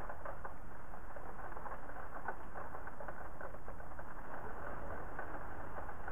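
Rain falling and pattering on a window pane: a dense, steady patter of countless small drops, with a steady low rumble underneath.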